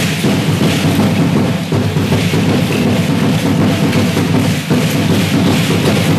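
Loud, continuous drumming with rattling accompanying Aztec (danza azteca) dancers: a large drum beaten steadily, with shaking rattles filling in above it.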